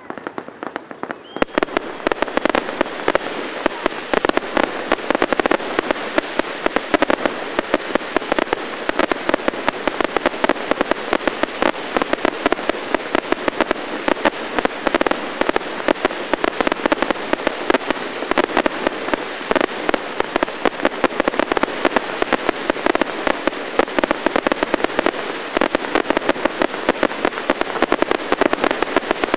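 Fireworks display: a dense, continuous barrage of rapid bangs and crackles that thickens about a second and a half in and keeps going without a break.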